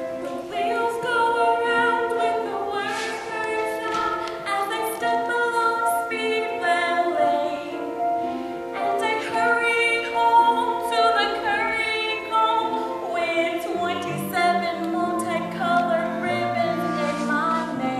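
A group of voices singing a song together in several parts, with lower notes joining about fourteen seconds in.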